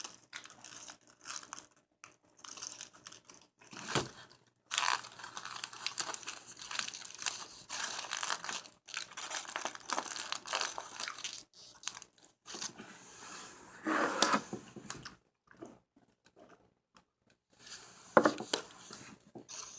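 Close-up eating sounds of a burger: paper crinkling as it is handled, with chewing, as irregular crackles and clicks. The crinkling is densest in the first half, with louder bursts later on.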